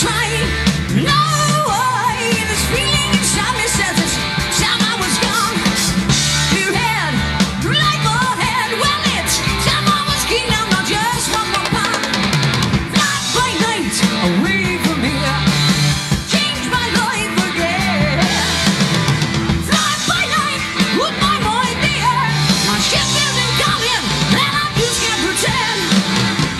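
Rock band playing live: a male lead vocal over electric guitar, bass guitar and drums.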